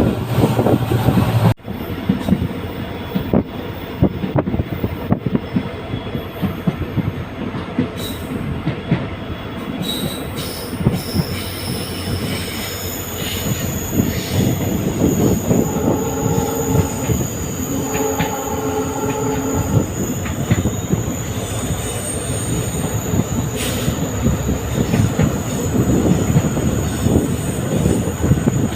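Passenger train hauled by a WDP-4D diesel locomotive running along the track: a steady rumble of wheels on rail with frequent clicks over the joints. Two short pitched tones sound a little past the middle.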